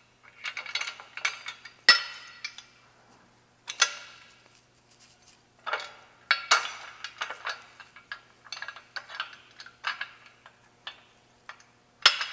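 Steel parts of a fork hand truck's removable rear handle and its snap pins being handled and repositioned: irregular metal clinks, rattles and knocks against the steel frame, with a sharp knock about two seconds in and another near the end.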